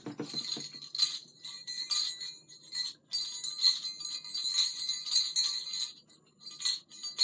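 Small jingle bells on a begleri skill toy jingling in irregular clusters as it is swung and handled, with short lulls about three seconds in and again near six seconds.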